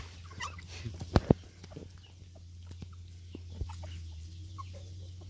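Faint, short animal calls scattered through, from puppies or nearby chickens, with two sharp knocks in quick succession a little over a second in, over a steady low hum.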